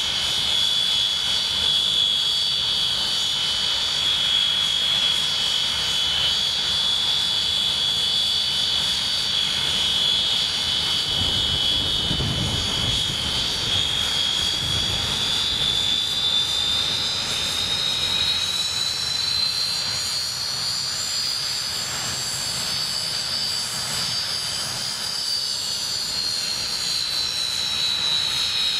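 Rolls-Royce Avon turbojets of an English Electric Canberra running on the ground, a steady high-pitched whine over a low rumble. The whine rises in pitch from about halfway through as the engines are opened up, then falls back near the end.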